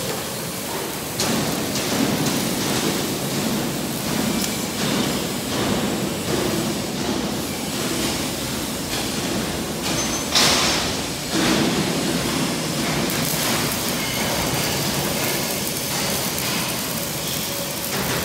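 Steady noisy din of a truck-body factory hall, with a short loud burst of noise about ten seconds in.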